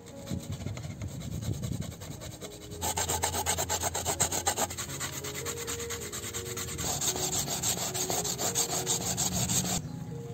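Rapid, evenly repeated scraping strokes of a kitchen tool during food preparation: quieter at first, then loud from about three seconds in, stopping just before the end. Soft background music plays underneath.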